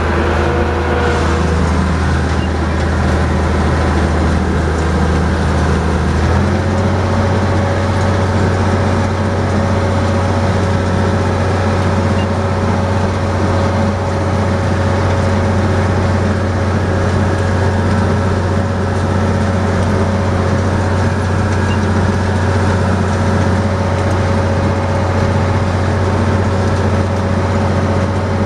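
Tractor engine running steadily under load, driving a New Holland 650 round baler through the PTO as the baler forms a bale. About six seconds in, the engine note steps up slightly and holds there.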